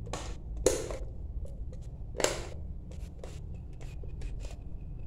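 Plastic 13A socket faceplates being pressed and shifted by hand against the wall to line them up: light clicks, taps and scrapes, with one sharper click a little under a second in and another a little past two seconds in.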